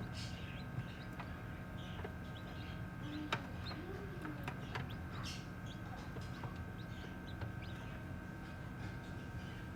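Baby chicks peeping in short, faint high chirps, with a few sharp clicks, over a steady hum.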